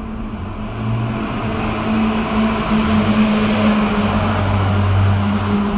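Twin-engine jet airliner's engines on approach, a rushing noise swelling over the first couple of seconds and then holding, with a steady low drone underneath.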